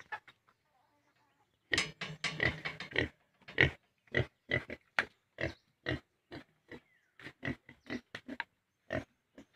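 Piglet grunting: a quick run of grunts about two seconds in, then single short grunts about twice a second.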